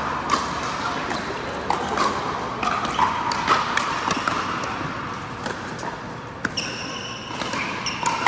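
Pickleball rally on an indoor court: irregular sharp pops of paddles striking the plastic ball, and the ball bouncing, over steady hall noise. A high squeak lasts about a second and a half near the end.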